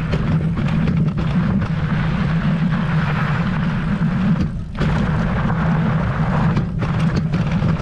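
Wind buffeting the microphone of a camera mounted on a moving fat-tire e-bike, over the rumble of the knobby 4-inch front tire rolling on loose gravel. It steadies throughout apart from a brief drop a little after halfway.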